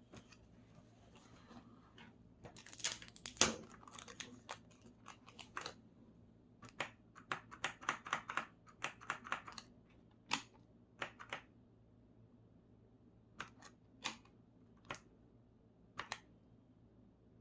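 Handling noises: a faint rustle, then a dense run of sharp clicks and knocks, thinning to a few single clicks later on.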